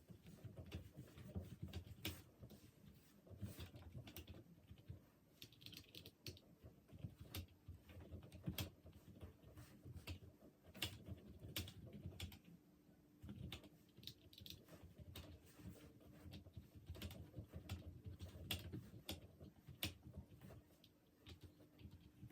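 Faint typing on an Apple A1048 keyboard: an irregular run of quick key clicks with short pauses between bursts.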